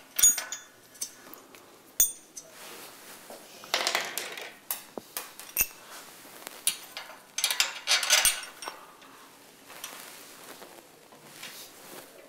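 Steel U-bolts, nuts and clamp plates of a curtain-track overlap clip clinking and rattling against the track as they are handled and refitted: several sharp metal clicks, with two longer bursts of scraping about four and eight seconds in.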